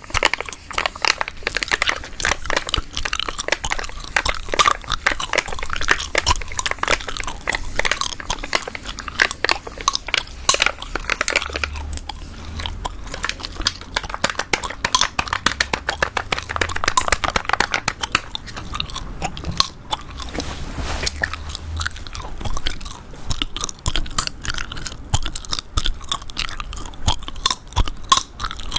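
Chewing gum chewed close to the microphone: a dense, continuous run of small clicks and snaps, with a low rumble underneath for several seconds in the middle.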